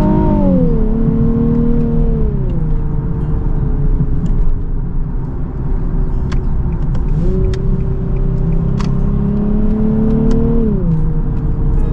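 2019 Nissan 370Z Nismo's 3.7-litre V6 pulling gently through its 7-speed automatic. The engine note falls twice in the first few seconds as the gearbox upshifts, then holds steady. About seven seconds in the pitch jumps up and climbs slowly, then drops again with another upshift near the end.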